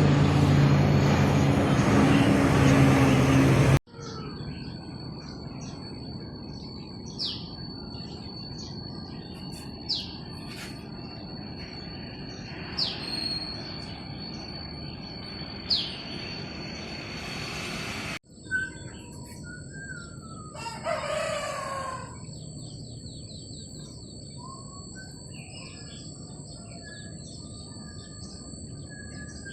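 Military transport aircraft engines drone loudly with steady low tones for about four seconds, then cut off abruptly. A quieter outdoor ambience follows: a steady high insect drone, scattered bird chirps, and one long rooster crow about 21 seconds in.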